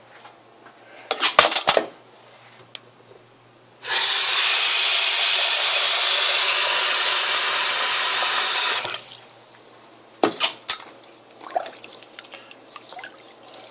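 Water tap running into a sink for about five seconds, then turned off, with a few clatters of things being handled before and after.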